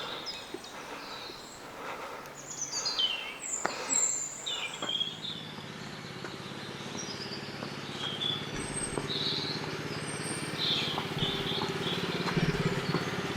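Small birds chirping and calling in quick short notes, mostly in the first few seconds. From about five seconds in, a low steady engine hum comes in and grows louder toward the end.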